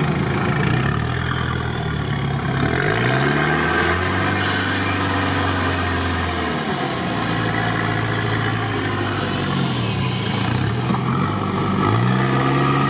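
Off-road vehicle's engine, heard from inside its cab, running and revving while it is winched out of deep mud by two winches. The revs climb about three seconds in, hold, drop back around seven seconds, dip again and rise once more near the end.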